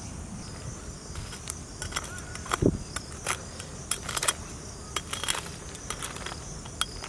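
Steady chirring of crickets or other insects, with scattered light clicks and taps as a steel spoon moves noodle blocks in a pan of boiling water. The loudest is a single knock of the spoon against the iron kadai a little past halfway.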